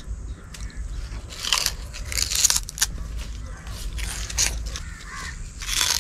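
Biting into and chewing a raw sugarcane stalk, tearing off the fibrous rind with the teeth. Crunchy bites come in several short bursts, the loudest about halfway through and again at the end.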